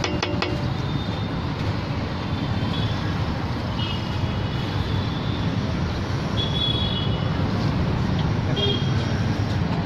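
Steady low rumble of street traffic, with a few faint short high tones now and then.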